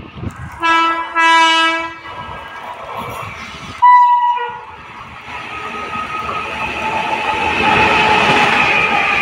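An Indian Railways electric locomotive sounds its horn: two blasts, a short one then a longer one, and about four seconds in a brief, higher-pitched toot. Then the rumble and rail clatter of the express swell as the locomotive and its coaches run past at speed.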